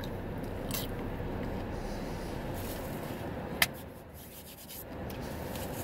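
A man eating fries in a car: chewing and handling food, with one sharp click about three and a half seconds in.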